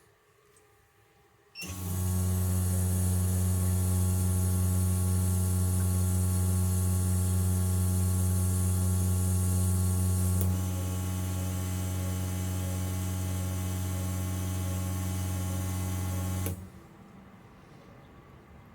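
Fuel-injector test bench running Grams 1000cc injectors: a steady mechanical hum with a hiss of spray. It starts about two seconds in, drops a little in level around ten seconds in, and stops shortly before the end.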